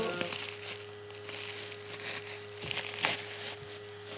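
Gift wrapping crinkling and rustling as it is handled, with a louder crackle about three seconds in.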